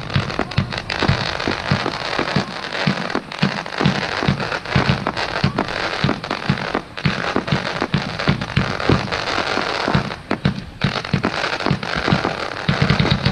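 Fireworks display: a continuous barrage of shell bursts and crackling, many sharp pops every second, with a dense run of low bangs near the end.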